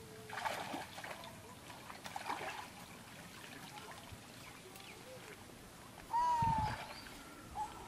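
Water trickling and splashing off a wet cast net as it is hauled up out of a pond. About six seconds in, a loud low thump with a short high call over it.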